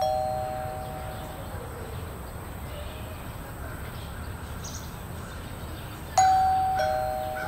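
Two-note ding-dong doorbell chime, high note then low. The first ring fades out over the opening second or two, and the doorbell rings again about six seconds in, over faint steady background noise.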